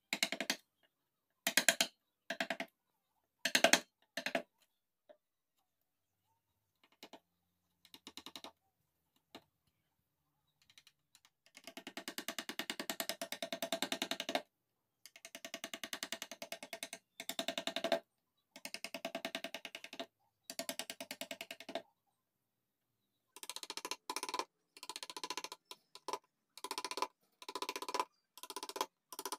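Hand chisel cutting and paring mahogany in short strokes, each a crisp scraping crackle of wood fibres being sliced. A few sharp cuts come at the start, then longer runs of scraping in the middle, and a steady series of short cuts near the end.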